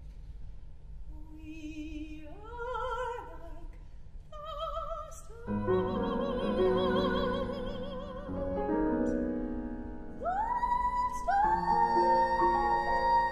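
Operatic soprano singing with piano: short phrases with wide vibrato climb in pitch, piano chords come in about five seconds in, and near the end the voice swoops up to a long held high note.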